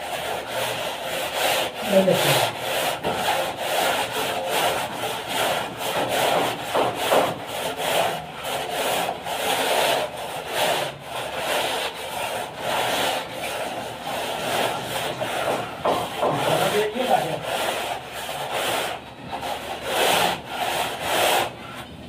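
A long straightedge being drawn back and forth across a wet cement-plaster coat on a wall, scraping in quick repeated strokes, several a second, as the plaster is screeded level.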